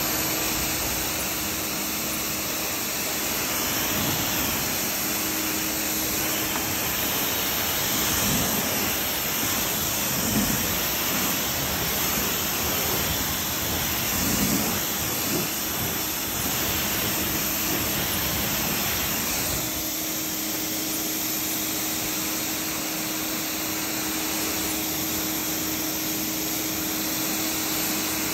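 Greenworks 1600 PSI electric pressure washer running, its jet of water hissing against the truck's wheel, tyre and body panels as it rinses off foam, over the steady hum of the motor and pump.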